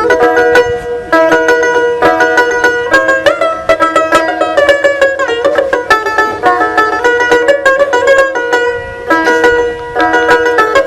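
Dotara, the fretless plucked lute of Bengali Baul folk music, played in quick runs of bright plucked notes with sliding pitches between some of them.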